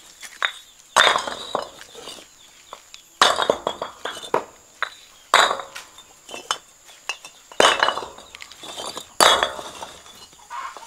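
Hollow fired-clay bricks clinking and clattering against one another and on concrete as they are picked from a pile and tossed onto a slab. The clacks come in about five bunches, roughly two seconds apart, each a quick run of ringing knocks.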